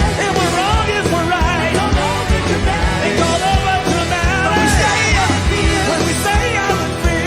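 Rock song with a sung vocal line over drums and bass guitar.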